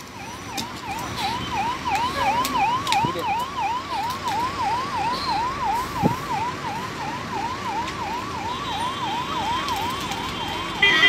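Emergency-vehicle siren sounding in a fast yelp, its pitch sweeping up and down about three times a second, over road traffic noise. A vehicle horn sounds loudly at the very end.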